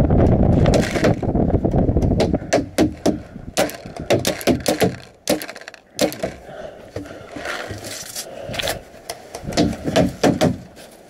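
Paintball markers firing rapid, irregular strings of sharp pops, some bunched several to a second with short pauses between, after a loud low rumble in the first second or so.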